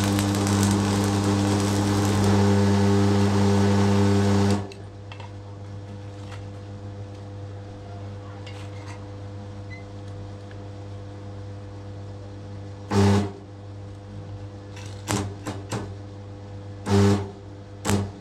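Restored DeWalt electric hammer running under power for about four and a half seconds, then stopping. Later it is run again in two short blips, with a few sharp clicks near the end.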